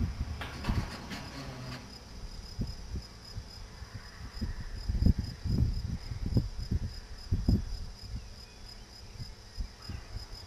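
Insects chirping in a steady, high, pulsing trill, with irregular low rumbles of wind on the microphone, the strongest about halfway through.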